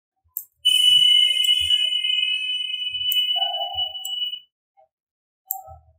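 A loud, steady, high-pitched whistling tone with a hiss over it, starting about half a second in and stopping after about four seconds. A few soft knocks are heard around it.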